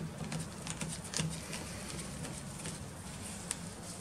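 Scattered light clicks and rubbing of gloved hands threading a metal male JIC hose fitting into a female JIC fitting by hand, over a faint steady room hum.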